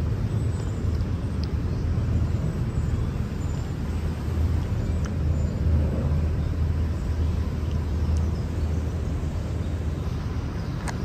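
Steady low outdoor rumble, with a few faint ticks over it.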